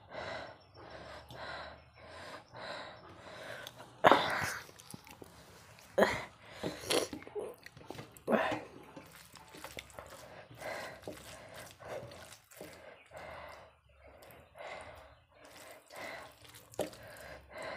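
Eating sounds: fingers squishing and mixing soft starchy rice with omelette curry on a steel plate, with chewing. Irregular wet clicks throughout, a few sharper ones about four, six and eight seconds in.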